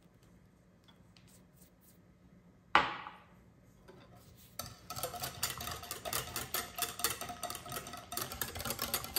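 One sharp knock of a utensil or container against the bowl or counter about a third of the way in, with a brief ringing tail. From about halfway, a hand whisk stirs cake batter in a mixing bowl: a fast, steady run of clicks and scrapes.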